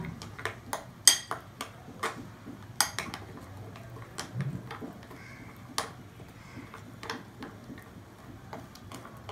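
Steel spoon stirring a thick yogurt-and-spice marinade in a glass bowl, clinking irregularly against the glass, the loudest clink about a second in.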